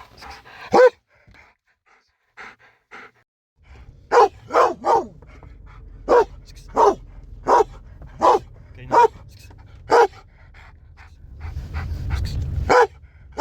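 A Beauceron barking deeply and aggressively in single barks: one near the start, then a run of about ten barks, one every half second to a second. Near the end a low rumble swells, broken off by one more loud bark.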